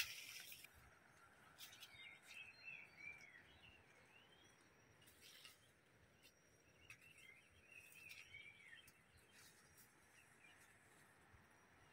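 Faint birdsong: short arching chirps in a few loose clusters over quiet outdoor background. A sharp click right at the start.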